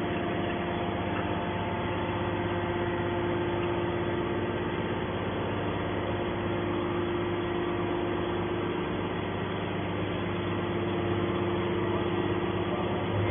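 Enerpat 100-ton hydraulic metal baler running: a steady machine hum with several held tones, even in level throughout.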